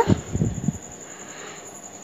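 A few soft, low rumbling bumps in the first part of a second, like a phone or camera being handled, then only a faint steady hiss with a thin high whine.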